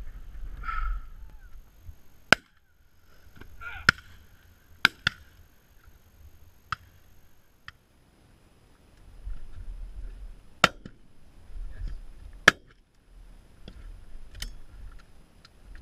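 Shotguns giving about eight sharp, short cracks spread out a second or more apart, four of them louder than the rest, over gusts of wind on the microphone.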